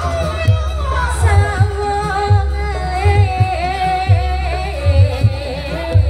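Jaranan music for a Garuda-bird dance: a wavering melody over a loud, deep drum beat struck several times a second.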